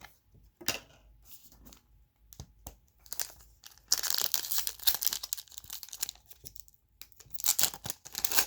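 Donruss football trading-card pack wrapper being torn open and crinkled in the hands: a few light clicks first, then a long stretch of crackling about three seconds in and another burst near the end.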